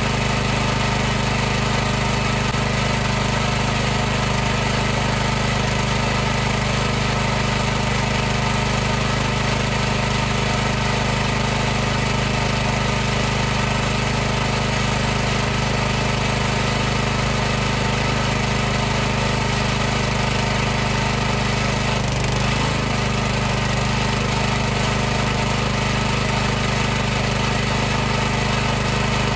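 High-pressure washer running continuously: a steady mechanical hum over a constant hiss, with a brief wobble in pitch about two-thirds of the way through.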